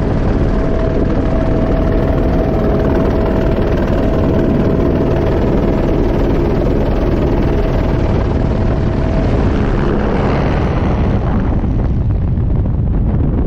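Helicopter engine and rotor running loudly and steadily, with a steady tone over the noise. About ten seconds in the tone is gone and the sound turns into a rush of air over the microphone, as in free fall.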